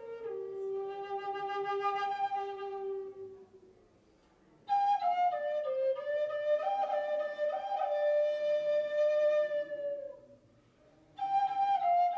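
Native American flute playing slow phrases, each stepping down to a long held note. The playing breaks off twice, about four seconds in and again near ten seconds.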